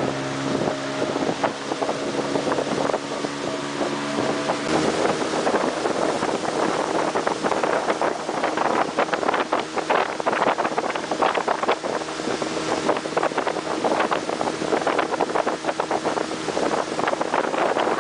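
Motorboat engine running steadily while the boat moves over the water, with water splashing against the hull and wind on the microphone. The splashing and wind get busier from about five seconds in.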